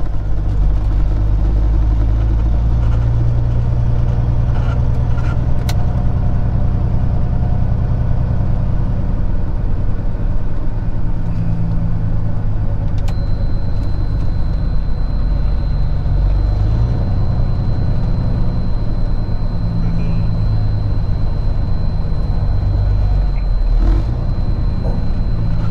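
Peterbilt 379 diesel truck engine running in the cab while driving slowly, its pitch shifting a couple of times. A faint steady high whine joins about halfway through.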